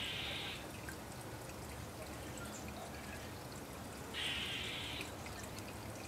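A small songbird bathing in a shallow birdbath, splashing water with its wings in two bursts of about a second each, one at the start and one about four seconds in, with faint drips and ticks of water between.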